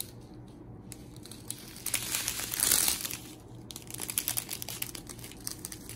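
Crinkling of a strip of thin clear plastic drill bags being handled, loudest for about a second and a half from about two seconds in, with light ticks and rustles around it.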